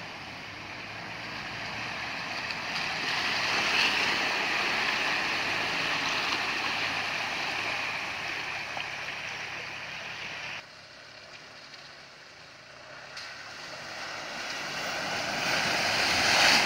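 Muddy floodwater surging and sloshing as a Toyota LandCruiser wades through a flooded dirt track, with its engine running under the water noise. The sound cuts off abruptly about ten seconds in. It then builds again to a heavy splash near the end as a Mitsubishi Triton ute ploughs through the water.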